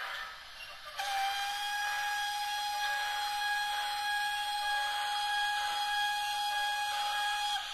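Sound decoder in a model of an FS Gr 685 steam locomotive playing a sampled steam whistle: after a second of soft steam hiss, one long steady blast of about six and a half seconds that cuts off sharply.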